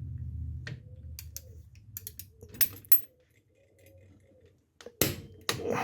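A string of separate sharp metallic clicks and clinks from hand tools being worked on the car's front suspension and brakes, with the loudest ones near the end.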